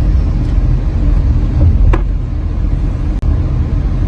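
Steady road and engine rumble inside a moving Tata Nexon's cabin, with a sharp knock about two seconds in, like someone tapping on the door. The knock is the cabin 'tak tak' noise that comes even at idle and that the service centre calls normal for all these cars.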